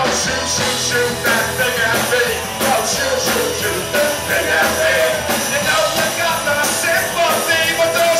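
Live rock-and-roll band playing, with drums, electric guitars and saxophone, heard through a club's loud house sound.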